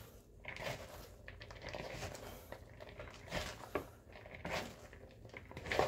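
Hands tossing shredded raw cabbage, carrot and onion in a bowl: faint, irregular rustling and crunching of the vegetable strands.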